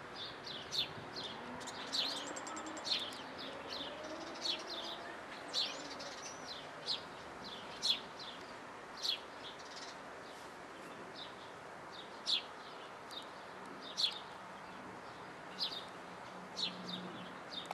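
Birds chirping outdoors: short, sharp high chirps, one every second or so, over a steady faint background hiss.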